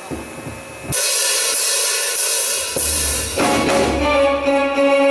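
Live rock band starting a song: a few drum hits, then about a second in the drum kit comes in with crashing cymbals, and bass and electric guitar chords join past the middle.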